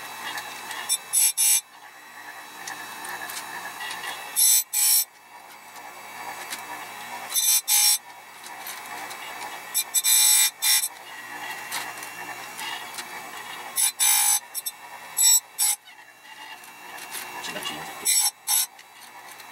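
Electric chainsaw chain sharpener running, its grinding wheel brought down onto the chain's cutters one after another: short loud grinds, often two close together, every few seconds, with the motor's steady whir in between.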